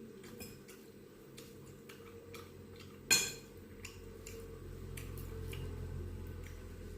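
Eating sounds at a meal: light scattered clicks and one sharp clink of cutlery against a plate or dish about three seconds in, followed by a low, muffled rumble.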